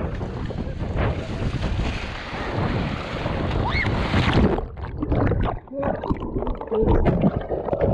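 Wind buffeting an action camera's microphone over choppy sea and waves washing against a sit-on-top kayak. About four and a half seconds in the kayak capsizes and the camera goes underwater: the sound turns muffled, with bubbling and churning water.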